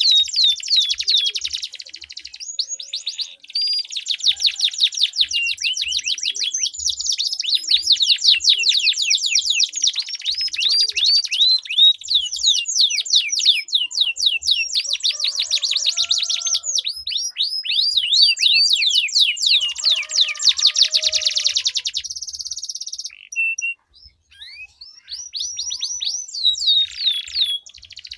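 Domestic canaries singing in long rolling trills: fast runs of repeated, high, falling notes, broken by a brief pause near the end.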